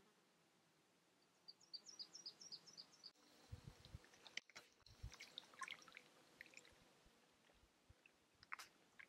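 Near silence with a faint high trill of about eight quick notes, a small bird singing, about a second and a half in. After it come scattered soft clicks and a couple of low thumps.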